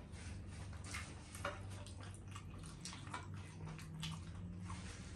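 Close-up eating sounds of fried food being chewed: irregular small wet clicks and smacks, several a second, over a low steady hum.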